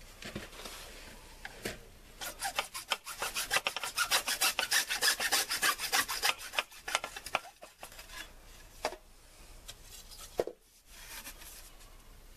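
A hand saw cutting through PVC pipe in quick, regular back-and-forth strokes, starting about two seconds in and stopping about eight seconds in. A few light knocks follow.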